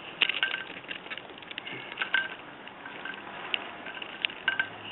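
Light handling noise from an RC crawler truck being turned and fiddled with: scattered small clicks and taps of plastic parts, with a few sharper ticks.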